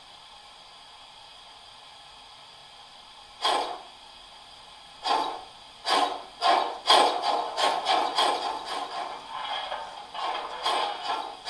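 Steam-locomotive exhaust chuffs from the sound decoder of a 1 gauge model of a class 64 tank engine as it starts off: a faint steady hiss, then single chuffs a second or more apart from a few seconds in, coming ever faster until they run together into a quick beat.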